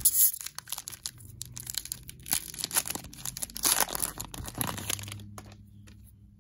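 Foil trading-card pack wrapper being torn open at its crimped end and crinkled as the cards are pulled out, the crinkling dying down about five seconds in.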